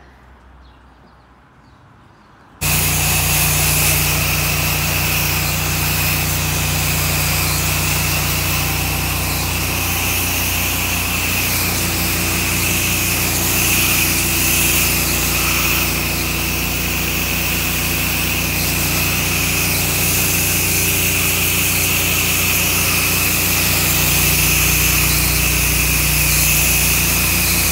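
Pressure washer wand spraying a wide fan of water onto vinyl house siding, with the machine's engine and pump running steadily underneath. The loud, steady hiss of spray starts abruptly a couple of seconds in.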